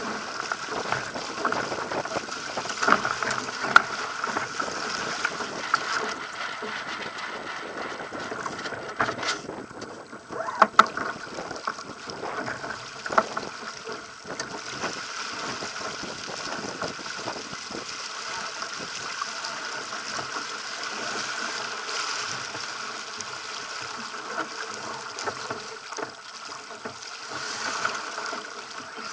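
Pacer sailing dinghy's hull rushing and splashing through choppy water, with wind noise and a few sharp knocks.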